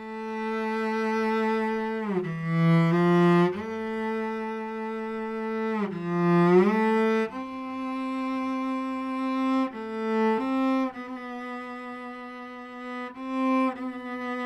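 Slow cello melody: long held bowed notes, sliding from one pitch to the next every few seconds.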